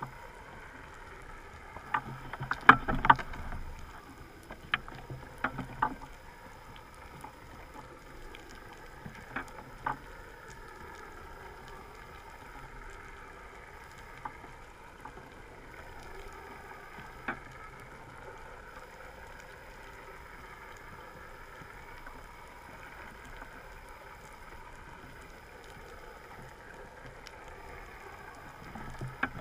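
Underwater recording: steady water noise with the hum of a boat engine heard through the water, wavering slowly in pitch. Sharp knocks come in a cluster about two to four seconds in, with single knocks scattered later.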